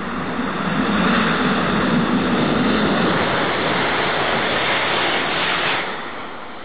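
ICE 3 high-speed train passing through at about 300 km/h: a loud rushing noise of air and wheels that swells about a second in, holds steady, then drops away suddenly near the end.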